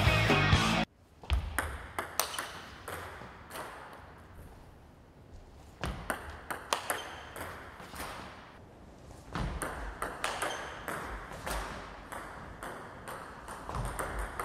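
Table tennis ball clicking sharply off the bat and bouncing on the table in several short runs of quick hits during backhand drive practice. Music cuts off about a second in.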